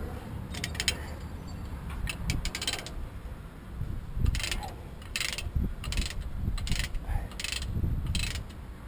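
Ratchet chain binder on a load chain being cranked, its pawl clicking in short runs of strokes, coming roughly every half second to a second in the second half.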